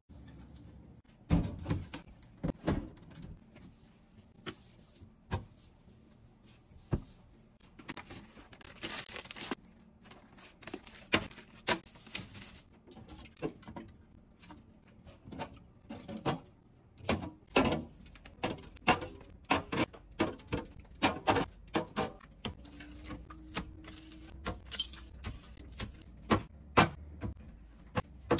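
Groceries set down on a refrigerator's glass shelves: a string of irregular knocks and clunks from cans, plastic jugs and containers, with a short rustle of packaging about nine seconds in.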